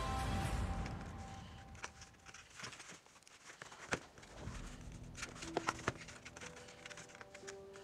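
Background music fades out in the first second, then faint clicks and light taps of a soldering iron, small wires and parts being handled on a wooden workbench, with a few sharper clicks about four seconds in and again near six seconds.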